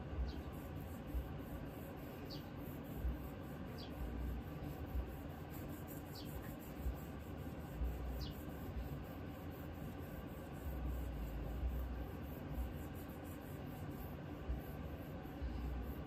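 Green abrasive pad rubbed over the steel of a Remington 1100 shotgun during home cold bluing: a faint, steady scrubbing with soft low bumps. Short high chirps, each falling in pitch, come every couple of seconds in the first half.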